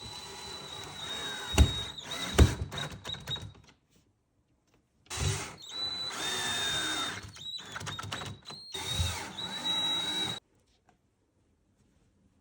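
Cordless drill driving screws through a metal bracket into a wall stud, in two runs of a few seconds each with a steady motor whine. There are two sharp knocks during the first run.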